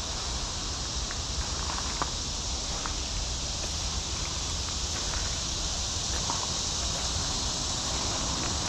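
Steady outdoor background hiss with a low rumble underneath and a few faint, light clicks.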